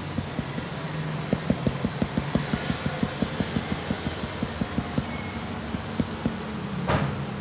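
Pen point tapping dots onto a paper bandage resting on a floor mat, a quick run of light taps at about four a second, over a steady low hum.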